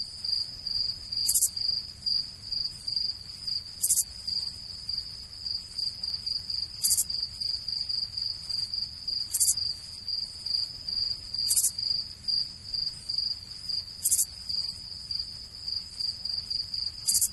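Crickets chirping: a steady, pulsing high trill with a sharper, higher chirp every two to three seconds. It is the stock 'crickets' sound effect for an awkward silence.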